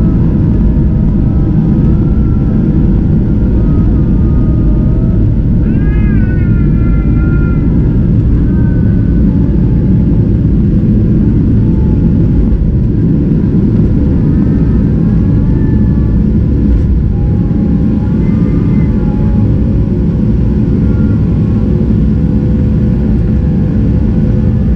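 Boeing 737-700's CFM56-7B turbofan engines at takeoff thrust, heard from the cabin over the wing: a loud, steady roar with runway rumble through the takeoff roll into liftoff. High, wavering calls that rise and fall sound above it on and off, one with a sharp upward sweep about six seconds in.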